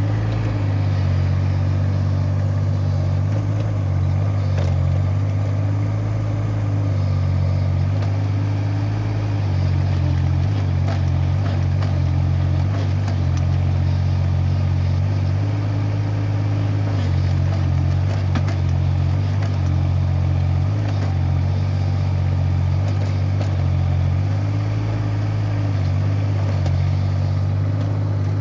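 Kubota mini excavator's diesel engine running steadily close by. A steady low hum with a higher note that lifts and drops several times as the boom and bucket work.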